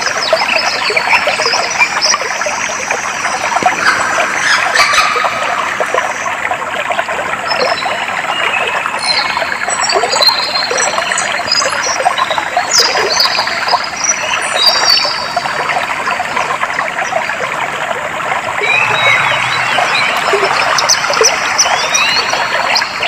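Clear water flowing and trickling steadily, with small birds chirping over it in quick short notes, busiest in the middle and again near the end.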